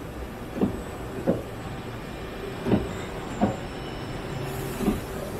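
CNC twin-spindle lathe running, with five short metallic clunks at uneven spacing over a steady machine hum.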